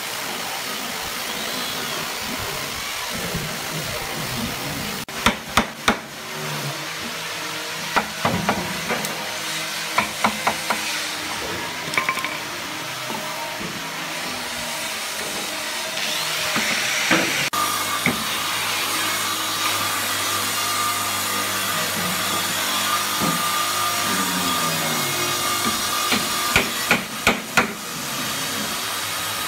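Wooden mallet striking a nail into a hardwood door frame: sharp knocks in short groups of three or four, over a steady mechanical hum.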